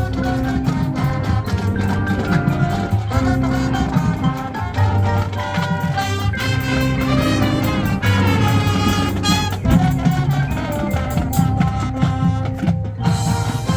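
High school marching band playing, a full ensemble of sustained pitched parts over a steady drum beat.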